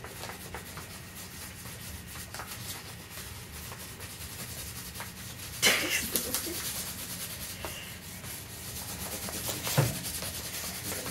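Wax crayons scribbling back and forth on paper plates, a steady dry rubbing. A brief louder sound cuts in a little past halfway and another shortly before the end.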